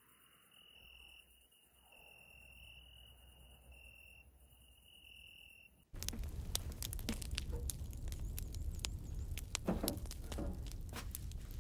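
A faint, steady high chirping, like a cricket or other insect, stopping and starting in a quiet setting. About six seconds in it cuts suddenly to a louder stretch of irregular crackles and clicks.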